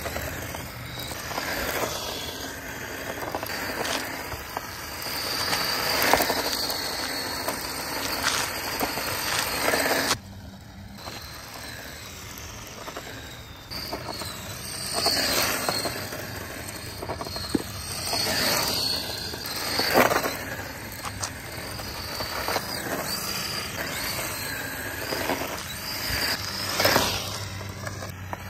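Small brushed-motor RC drift car, the HBX Haiboxing 2103, driven in repeated slides on asphalt. The electric motor whines as it speeds up and eases off, and the tyres scrub and skid across the pavement in surges. A quieter stretch comes about ten seconds in.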